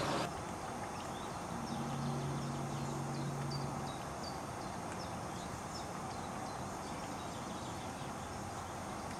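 Outdoor background noise with faint, short, high chirps scattered throughout. A steady low hum runs for about two seconds near the start.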